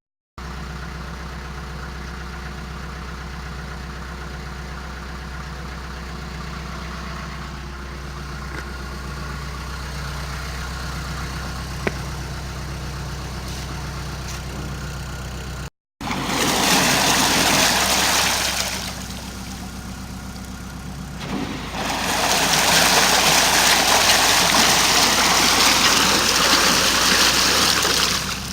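Narrowboat's diesel engine idling steadily. After a cut, a much louder rushing noise comes in two long stretches, the second about twice as long, with a quieter break between them.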